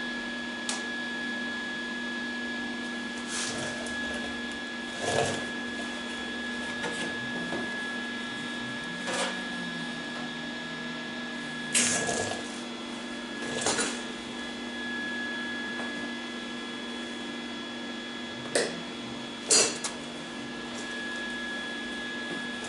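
MIG welder laying short tack welds on thin sheet steel: about nine brief bursts of arc noise spread through, over a steady electrical hum.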